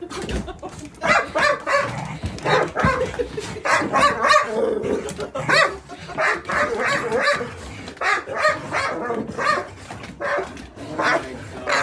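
Dogs (an Akita, a Belgian Malinois and a Corgi) barking and yelping in a continuous run of short calls, the excited greeting of dogs whose owner has come home after a week away.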